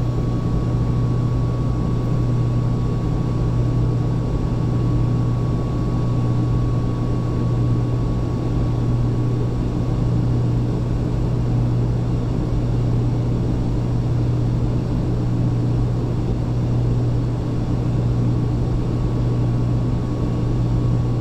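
Steady machinery drone: a strong low hum with a thin high whine over it.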